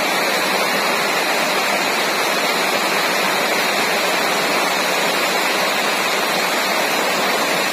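Heavy rain pouring down in a steady downpour, a dense, even hiss that holds at one level throughout.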